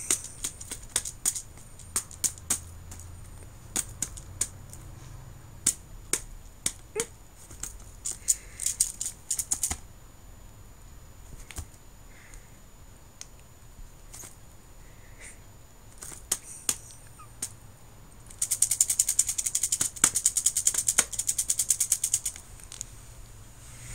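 Soroban beads rattling inside its cloth case as it is shaken: scattered sharp clicks for the first ten seconds, then a long run of fast rattling near the end.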